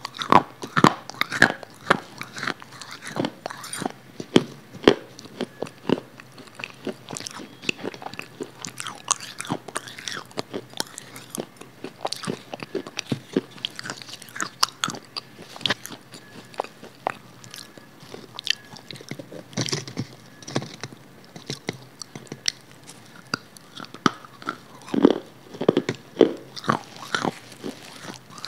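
Close-miked eating: repeated crisp bites and chewing of a firm white block of food, a sharp crunching click every second or so, with a cluster of fuller, louder bites near the end.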